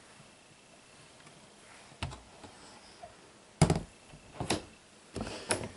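A quiet stretch, then a handful of sharp knocks and clicks from hands working at a glass-fronted reptile enclosure; the loudest comes about halfway through.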